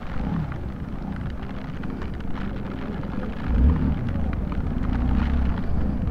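Motorcycle engine running on the move, with wind rushing over the microphone. The low rumble grows louder about three and a half seconds in.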